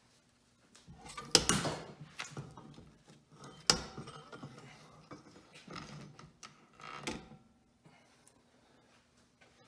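Greasy metal parts of a 1926 Ford Model T differential knocking and clanking as the differential carrier is pulled off the axle shaft. A few separate knocks, the loudest about a second and a half in and near four seconds, with another around seven seconds.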